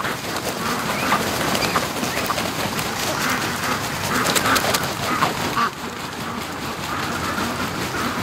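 A flock of Pekin ducks quacking all at once, a continuous overlapping chatter of calls as they hurry across the yard.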